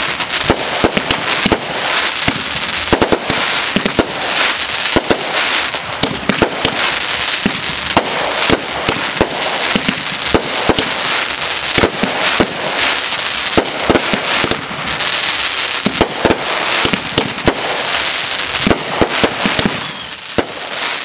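Fireworks display: a rapid, unbroken barrage of aerial fireworks launching and bursting, with sharp bangs and dense crackle. Near the end a whistle falls in pitch.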